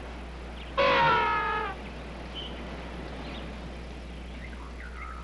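A single loud, wailing animal call lasting about a second, about a second in, falling slightly at its end, followed by a few faint short chirps.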